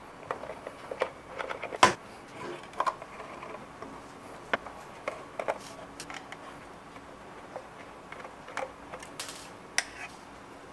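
Screwdriver backing screws out of a Furman power strip's sheet-metal case, with scattered small metal clicks and taps as the case is handled on a steel bench. The loudest is a sharp clack about two seconds in.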